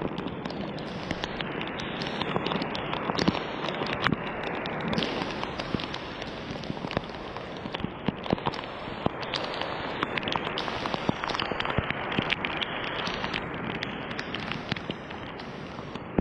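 Steady rain falling, with many sharp drop hits scattered throughout.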